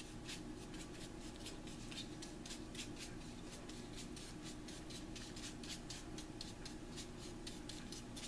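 Notched chip brush stroking paint along a wooden dowel: a fast run of soft bristle swishes, several a second, that stops near the end. A steady low hum runs underneath.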